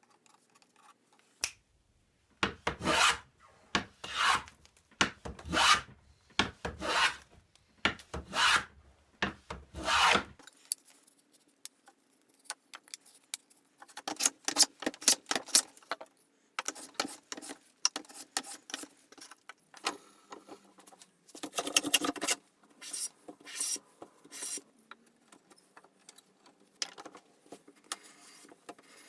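A hand tool working wood: about nine even, rasping strokes, roughly one a second, then lighter, irregular scraping and rubbing.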